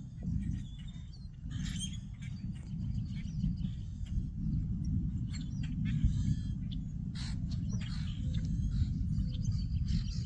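Wind rumbling on the microphone, with birds chirping and calling on and off throughout.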